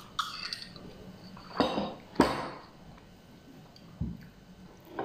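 A person chewing a mouthful of pancit canton instant noodles, with a few short, noisy mouth sounds; the two loudest come close together about halfway through.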